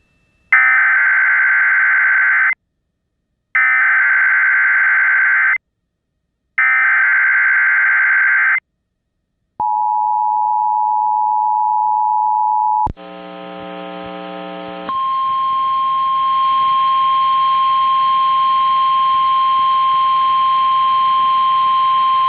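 Emergency Alert System tones on NOAA Weather Radio. First come three short buzzy bursts of SAME header data with a second of silence between each, then a steady two-tone attention signal for about three seconds. After a brief quieter buzz, a single steady high alert tone holds for the last seven seconds or so.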